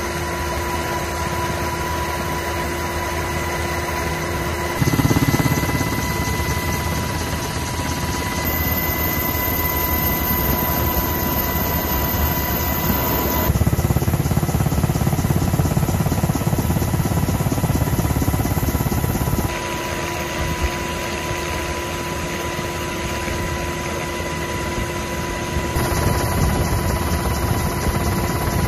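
Steady helicopter engine and rotor noise as heard aboard the aircraft, a dense rumble with a constant whine. Its balance shifts abruptly several times as the recording is cut from one stretch to another.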